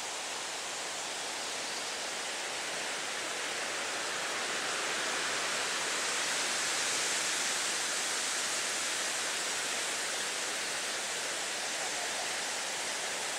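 Wind moving through forest trees, a steady hiss of leaves that swells in the middle and eases again, with a faint short call near the end.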